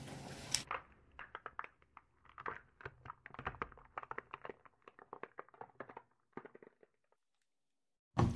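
Plastic toy vehicles cracking and snapping under a slowly rolling car tyre: an irregular run of sharp cracks and clicks for about five seconds, then quiet.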